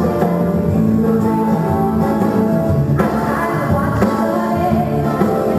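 Live music: a woman singing a cabaret-style arrangement of a pop song over a band with guitar, with sharp accents about three and four seconds in.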